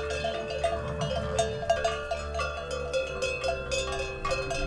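Background music: a plucked, bell-like melody with regular struck notes over sustained chords and a low bass, with a chord change about three seconds in.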